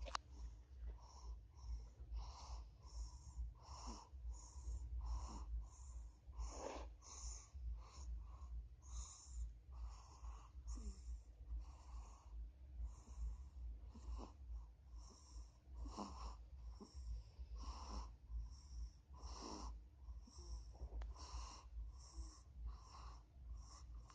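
A young child snoring in his sleep: quick, wheezy breaths, about one a second, over a steady low hum.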